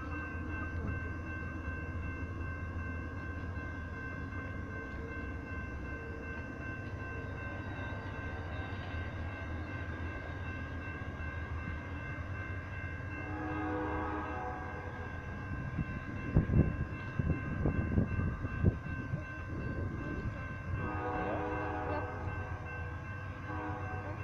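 Amtrak bilevel passenger cars rolling past as the train leaves the station, a steady rumble of wheels on rail with a cluster of loud clacks about two-thirds of the way through. The locomotive's horn sounds from down the line about halfway through and again near the end.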